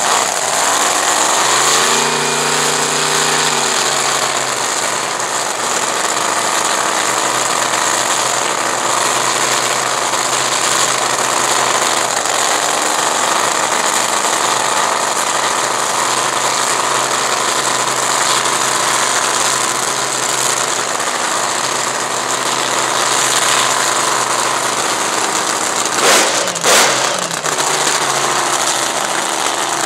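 Supercharged V8 of a Top Fuel dragster firing up, its pitch climbing over the first two seconds, then idling steadily. Two short, sharp bangs about 26 seconds in, louder than the idle.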